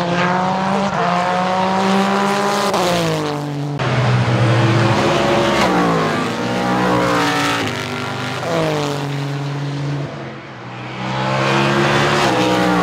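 IMSA sports-prototype race cars passing one after another at full speed, loud. Each engine note climbs as the car accelerates, then drops sharply as it goes by: about three passes.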